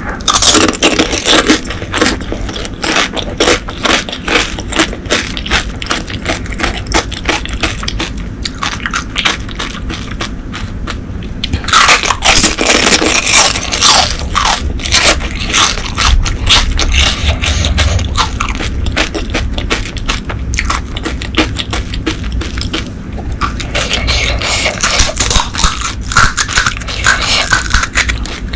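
Close-miked crunching and wet chewing of panipuri: crisp, hollow fried puri shells filled with spiced water and a chickpea-potato filling breaking and being chewed. Louder spells of crunching come at the start, about twelve seconds in, and again near the end.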